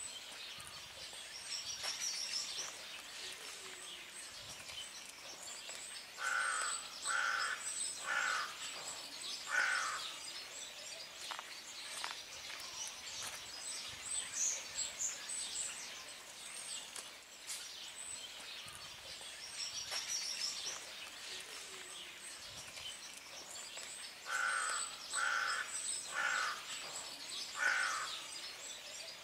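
Birds calling outdoors. A larger bird gives two runs of four harsh calls about a second apart, one about six seconds in and one near the end, over steady high chirping of small birds.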